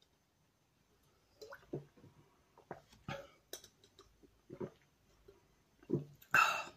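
A person gulping down cider from a glass: a string of soft swallows, roughly one every half second to a second, and a louder breath or sound near the end as the glass comes down.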